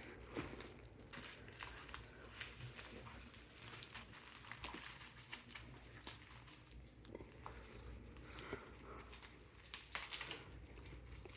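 Packaging rustling and crinkling in irregular bursts as a graduation cap and gown is unpacked by hand, with a few sharper crackles.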